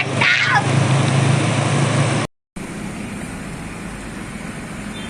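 Road traffic noise: a vehicle engine drones low and steady, with a falling whoosh near the start. The sound then drops out for a moment and quieter traffic noise carries on.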